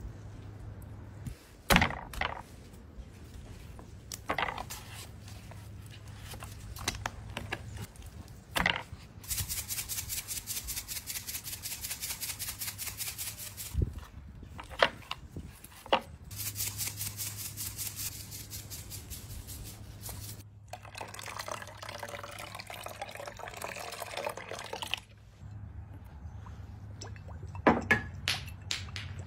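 Raw-chicken prep: a few sharp snips of poultry shears through the bird, then long stretches of wet handling as the raw chicken is pressed flat on the board, and near the end liquid sounds and a few quick squirts from a squeezed hot sauce bottle.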